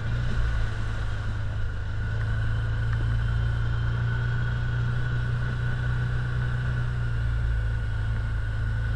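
A side-by-side ATV's engine running steadily at low trail speed, a constant drone with a steady higher whine over it.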